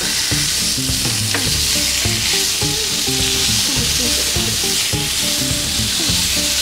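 Sliced pork sizzling steadily as it fries in a nonstick frying pan, pushed and turned with cooking chopsticks.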